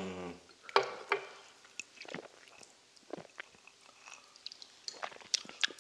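Soft, scattered mouth noises of eating and drinking: chewing ramen noodles and sipping dark beer from a glass, with small clicks between.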